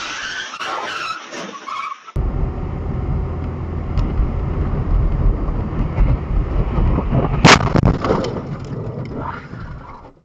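Car cabin audio from a dashcam while driving on a snowy road: a steady low rumble of engine and tyres, then one sharp, loud bang about seven and a half seconds in, the car hitting something in a crash.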